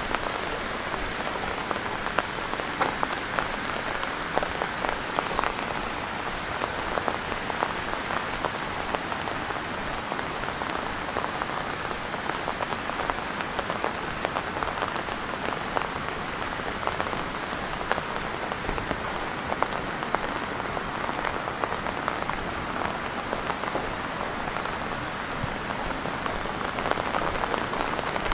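Steady rain falling and splashing on hard surfaces, an even hiss dotted with many small drop ticks.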